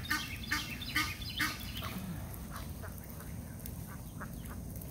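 Ducks and geese calling: a quick run of short, harsh calls in the first couple of seconds, then fainter scattered calls.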